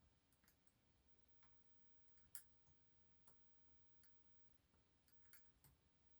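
Near silence with faint, scattered small clicks from a dimple pick working the pins and sliders inside a Delta dimple lock cylinder, a clone of the DAF Kilit DBS02. The sharpest click comes about two and a half seconds in.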